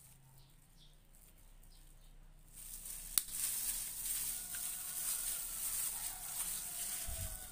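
A hand in a thin plastic glove massaging raw chicken pieces in a wet marinade: steady crinkling of the plastic and wet squishing that starts suddenly about two and a half seconds in, with a sharp click just after. Before that it is quiet.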